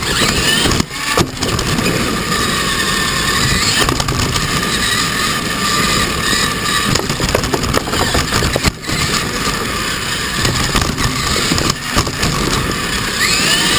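R/C monster truck driving on gravel, heard from a camera mounted on its chassis: a loud, steady whine from the motor and gears over a dense rumble of tyres and rattling chassis, rising in pitch near the end as the throttle opens, and dipping briefly a few times.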